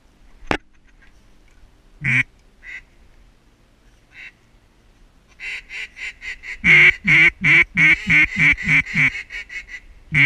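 Mallard duck call blown in a run of quacks. A single quack near the start and another about two seconds in, then from about five and a half seconds a long, quick series of a dozen or more quacks, loudest in the middle, with one more loud quack at the end.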